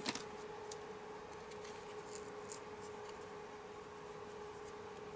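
Faint rustling and small ticks of a taped strip of cardstock being folded over and pressed between the fingers, over a steady hum.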